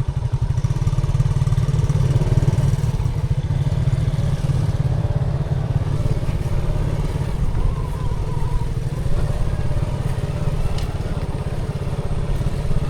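Motorcycle running as it is ridden along, with a steady heavy low rumble throughout.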